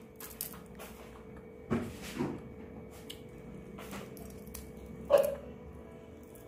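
Soft eating noises of someone picking apart a small fish by hand and chewing: a few quiet smacks and clicks, then a short, louder mouth sound about five seconds in, over a faint steady hum.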